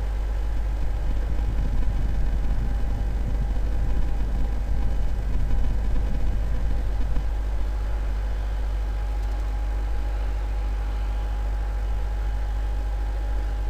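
Steady low rumble with hiss and a faint steady hum. It swells a little and grows rougher for the first seven seconds or so, then settles to an even level.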